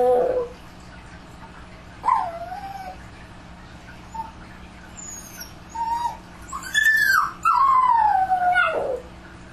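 Dog howling and whining: a long howl falling in pitch right at the start, short whimpering cries about two seconds in and again around five to seven seconds, then another long falling howl near the end. A faint steady hum lies underneath.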